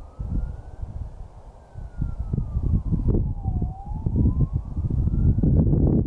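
A distant siren wailing, its single tone slowly rising and falling in pitch, about two and a half seconds each way. Under it is a louder, gusty low rumble of wind on the microphone.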